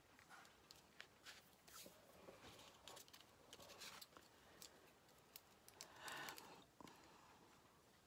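Faint paper and card being handled: scattered light clicks and taps, with a longer rustle about six seconds in.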